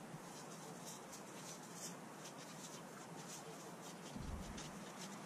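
Faint, irregular scratching of garden rakes dragged through dry cut grass on a lawn, with a brief low rumble a little after four seconds.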